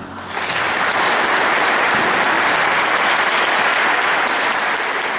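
Audience applause breaking out just after the last chord dies away, then dense, steady clapping.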